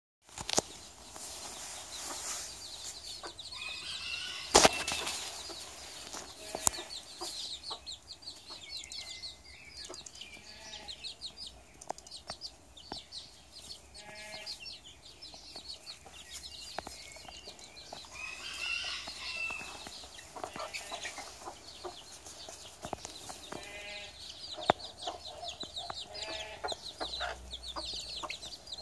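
A brood of baby chicks peeping constantly in quick, high chirps, with a hen clucking in short runs now and then. A single sharp knock about four and a half seconds in is the loudest sound.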